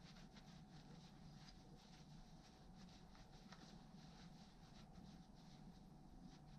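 Faint rubbing of a cloth rag on a rusty metal tool, a quick run of soft scratchy wiping strokes, over a faint steady hum.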